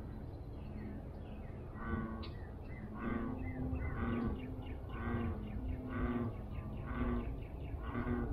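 An animal calling over and over, about once a second, starting about two seconds in, with faint higher chirps before that and a low steady rumble underneath.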